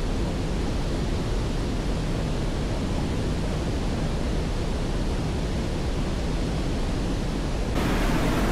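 Steady rushing of river water, an even hiss over a low rumble, turning brighter near the end.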